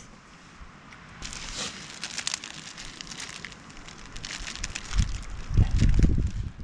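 Wood fire crackling in a Solo Stove Lite wood-burning stove, with many quick snaps. A loud low rumble comes in about five seconds in and lasts to the end.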